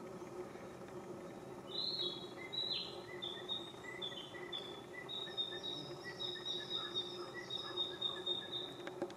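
A songbird singing a long run of short, high chirped notes, beginning about two seconds in and repeating rapidly, over a steady low background hum.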